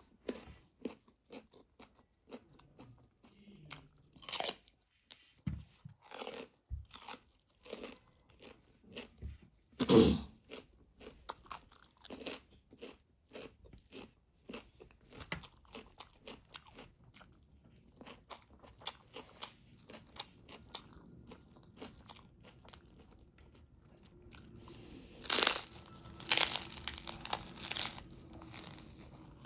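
Close-up eating sounds: a person chewing and crunching food with many small wet mouth clicks, one loud crunch about ten seconds in, and a few louder crackling noises near the end.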